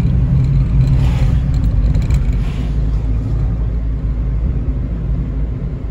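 A car driving along a hill road, its engine and tyres making a steady low rumble that eases slightly about halfway through.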